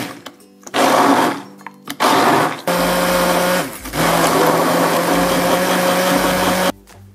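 Hand-held immersion (stick) blender puréeing raspberries in a bowl. It gives two short pulses, then runs steadily for about four seconds and cuts off suddenly near the end.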